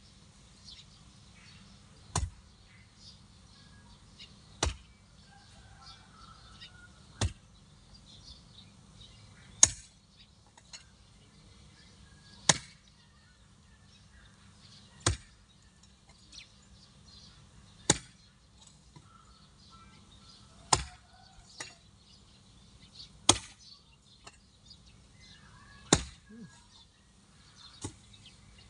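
A long-handled digging tool striking dry, hard ground, breaking up the soil: ten sharp thuds, one about every two and a half seconds.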